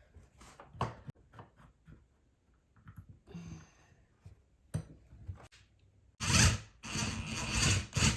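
Small knocks and scrapes of hands working a bracket and its hardware against a wall, then about six seconds in, some two seconds of loud rasping scraping.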